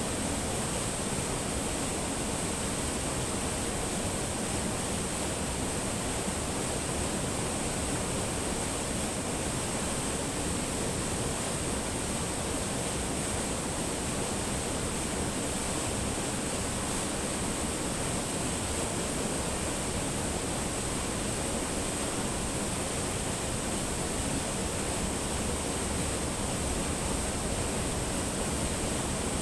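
Spring water flowing steadily over rocks: an even, unbroken water noise with a bright hiss high up.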